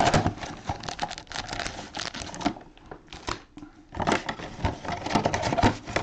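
Cardboard trading-card boxes being opened by gloved hands and foil-wrapped card packs pulled out: irregular rustling, crinkling and clicking, with a lull around three seconds in.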